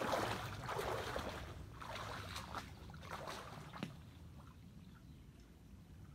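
Angler wading through a shallow river: water sloshing around the legs in irregular surges, dying away about four seconds in to a faint trickle.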